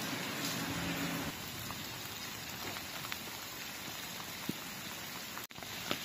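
Heavy storm rain falling steadily, a constant hiss of rain on the ground. The sound breaks off for an instant about five and a half seconds in, then the rain continues.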